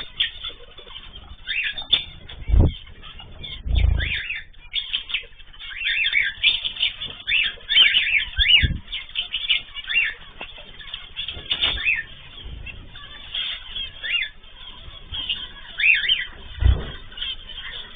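Caged ornamental birds chirping over and over in short calls, with several low thumps and wing flutters scattered through.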